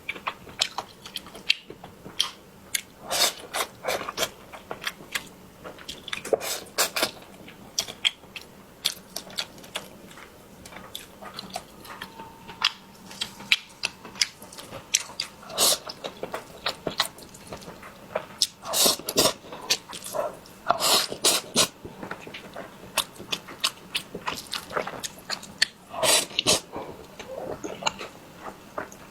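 A person eating close to the microphone: irregular chewing and wet mouth clicks, with louder clusters of bites every few seconds.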